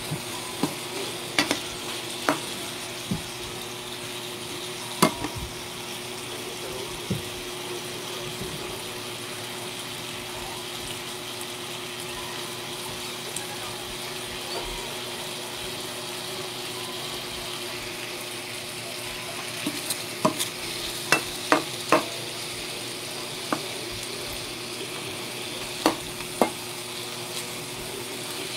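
Chicken pieces frying in oil in a metal wok with a steady sizzle. A metal utensil stirs the pieces and clicks sharply against the pan a few times near the start and in a quick cluster about two-thirds of the way through.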